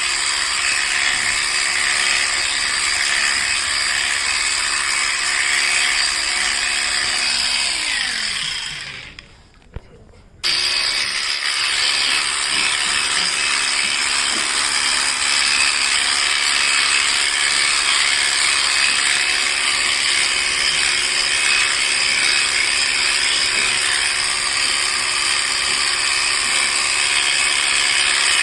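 Electric sheep-shearing clipper running with a steady buzz as it cuts wool. Around eight seconds in it winds down and stops, then starts up again abruptly a couple of seconds later and runs on steadily.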